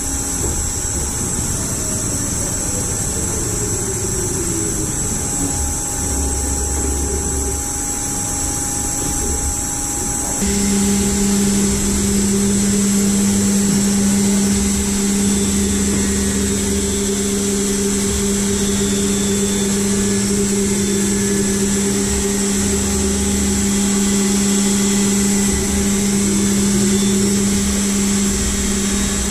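Turn-mill machining center running: a steady machine hum with sliding whines as its axes move, then about ten seconds in it switches abruptly to a louder, steady hum with a strong low tone and more hiss.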